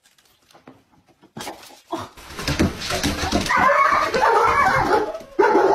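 Near silence for about a second and a half, then a burst of noise and a dog's high, wavering cries that carry on loudly to the end.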